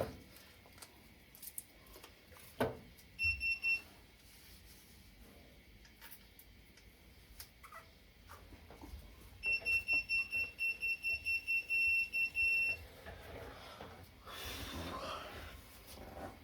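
Wheel balancer beeping: a short run of high electronic beeps, then a longer even run of about ten beeps, roughly three a second. There is a single knock a few seconds in and a brief rushing noise near the end.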